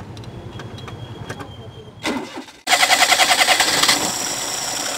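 Perodua Kancil 850's three-cylinder carburetted engine being started from cold with its faulty automatic choke flap held shut by hand. After a few quiet ticks, it cranks with a fast pulsing about two and a half seconds in, then catches and runs steadily. The auto choke stays open when cold instead of closing, which is why the engine is hard to start.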